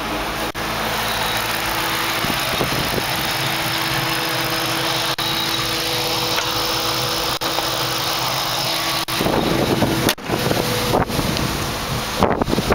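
Supercharged Ford SVT V8 idling steadily under heavy wind noise on the microphone. It gets louder and rougher about nine seconds in.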